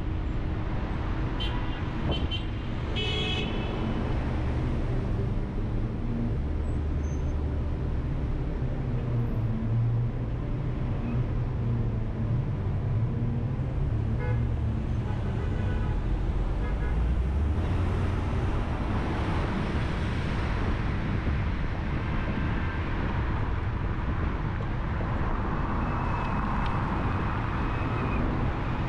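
Busy city traffic heard from a moving car: steady engine and tyre rumble, with a few short car-horn toots in the first few seconds.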